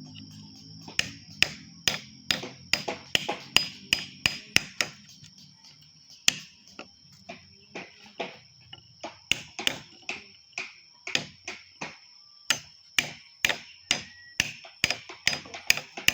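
Wood-carving chisel struck with a mallet: sharp irregular taps, two or three a second, thinning out for a few seconds in the middle. A faint steady high whine runs underneath.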